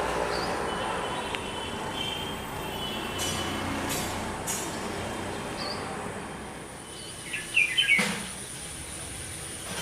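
Small birds chirping now and then over steady low background noise, with a louder quick run of chirps about seven and a half seconds in.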